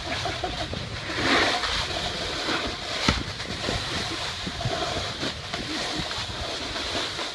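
Snowboards sliding and scraping over granular snow, a steady hiss that swells about a second in, with wind rumbling on the microphone. A sharp knock about three seconds in.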